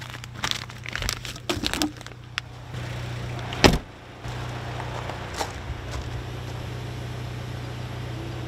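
Steady low hum of a car idling, with plastic bags rustling and clicking as they are handled in the first two seconds, and one loud thump a little past the middle.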